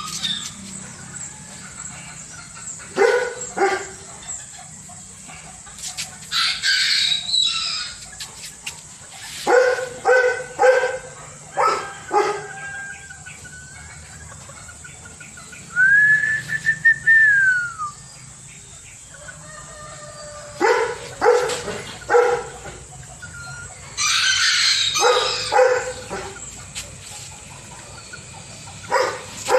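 Serama bantam roosters crowing again and again, with shorter calls between. One long crow a little past the middle rises and falls.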